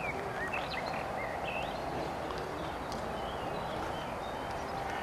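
Outdoor ambience: a steady rushing background noise, with small birds chirping now and then, most of the chirps in the first two seconds.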